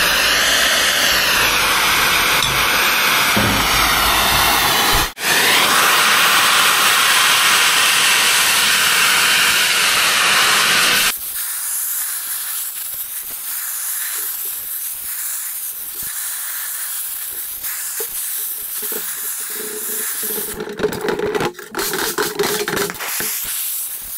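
Gas cutting torch hissing steadily as its flame works bearings off a dozer final-drive part. It stops for an instant about five seconds in, and drops to a quieter hiss about eleven seconds in.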